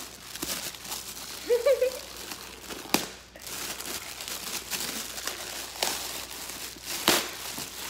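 Clear plastic bag crinkling and rustling as a purse is pulled out of it, with sharp crackles about three seconds in and again near the end.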